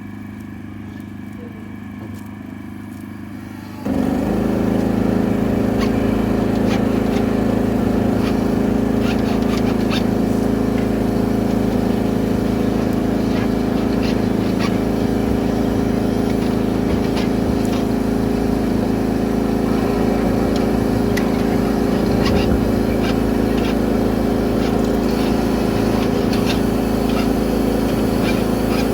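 Engine-driven high-pressure drain-jetting washer running steadily, then about four seconds in becoming suddenly much louder and holding there as it comes under load, with scattered clicks and knocks over the steady drone.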